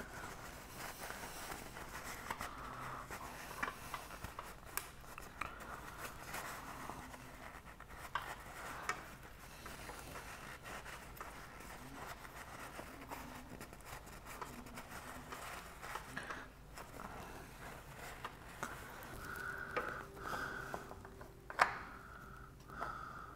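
Faint rubbing and rustling of a cloth rag wiping the metal oil filter seat on a motorcycle crankcase, with scattered small clicks and taps and one sharper click near the end.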